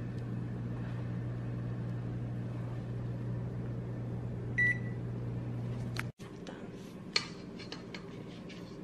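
Oven running with a steady electrical hum, with one short electronic beep about four and a half seconds in. The hum cuts off abruptly about six seconds in, leaving a quieter room with a few light clicks.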